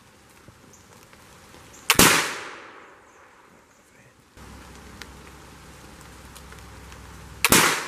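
Two shots from muzzle-loading flintlock rifles, one about two seconds in and one near the end. Each is a sharp crack with a short echo trailing off.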